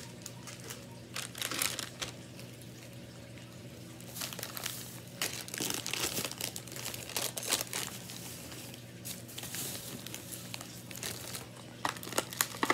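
Plastic candy packaging crinkling as it is handled, in irregular bursts of a second or two, with a few light clicks near the end.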